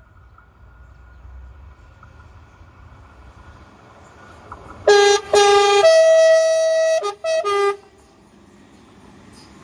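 A train's two-tone horn. About five seconds in it gives a short blast and a longer one on the lower note, then holds the higher note for about a second, then ends with three quick short toots. A faint low rumble of the train is heard before the horn.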